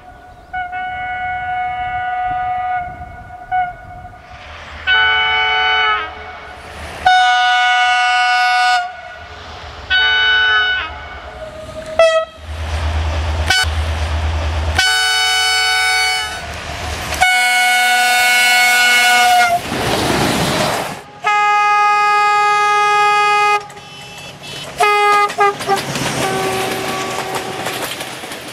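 Railway locomotive air horns sounding one after another: about ten separate blasts of one to three seconds each, at different pitches, some single notes and some chords of several tones. About two-thirds of the way through, a passing train's rushing noise is heard.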